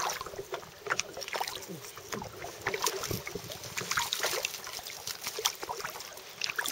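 Irregular small splashes and water sloshing at the side of a boat as piranhas go for bait, with faint voices underneath.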